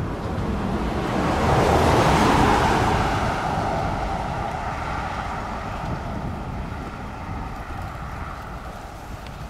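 A vehicle passing on the road, its tyre and engine noise swelling to its loudest about two seconds in and then slowly fading away.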